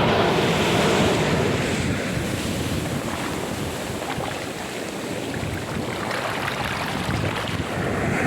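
Ocean surf: waves breaking and washing in, a steady rushing that eases off midway and builds again near the end.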